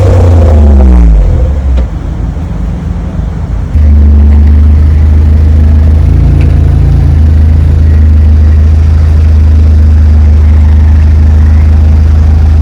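Honda Brio's exhaust through a Kakimoto Regu 92dB-Z muffler: the revs fall away about a second in and it runs quieter for a few seconds, then a loud, steady low engine drone comes in suddenly and holds.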